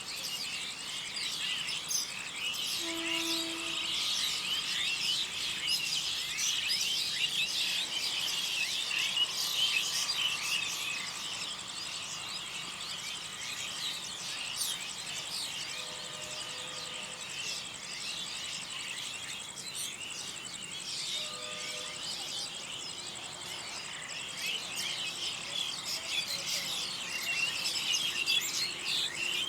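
Dense chorus of many small birds chirping continuously, over a thin steady high-pitched insect-like whine.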